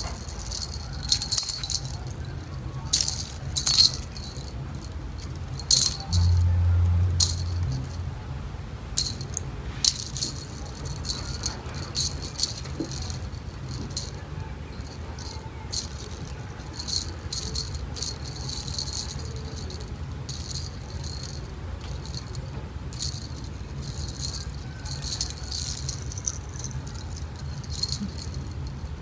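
Small jingle bells on a dangling cat toy jingling in irregular bursts as a cat bats at them. A brief low hum comes in about six seconds in.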